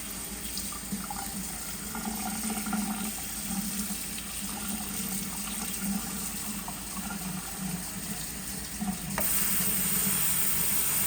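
Brown rice being washed by hand in water, the grains swished and sloshing. About nine seconds in, a tap starts running, a louder steady hiss.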